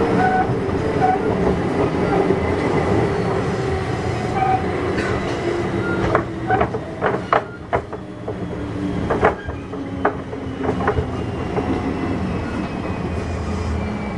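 Kintetsu 6200 series electric train heard from inside the car while running: a steady wheel rumble, a run of sharp rail-joint clicks in the middle, and a motor whine falling slowly in pitch as the train slows.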